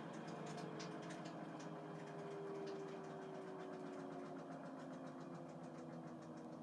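Samsung front-load washing machine's drum spinning in a test run, a steady motor hum with a tone that slowly falls in pitch, and a few light ticks near the start.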